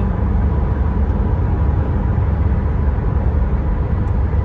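Steady low rumble of road and engine noise heard inside a car's cabin while it drives along a highway.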